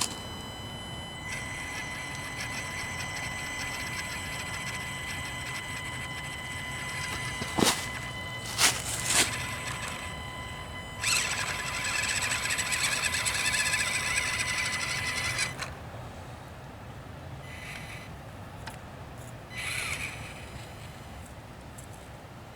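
Axial SCX24 micro RC crawler's small electric motor and drivetrain whining with a steady high tone as it crawls up a boulder, with three sharp knocks around eight to nine seconds in. The whine grows louder and rougher for a few seconds, then drops away about two-thirds of the way through, leaving only a few short bursts of throttle.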